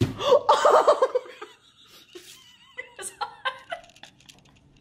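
Laughter: a loud burst in the first second and a half, then quieter scattered giggles.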